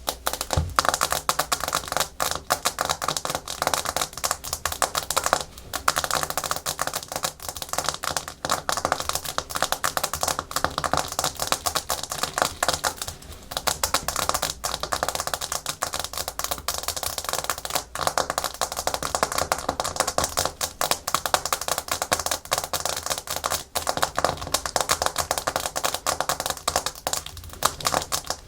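Natural fingernails tapping fast and hard on a hard plastic surface, a dense rapid clatter of clicks like typing, with brief pauses now and then.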